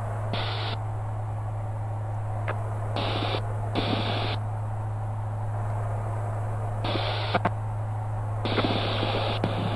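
Steady drone of a light aircraft's engine and propeller, heard through the cockpit intercom. About five short bursts of hiss cut in and out sharply, as the intercom or radio opens and closes.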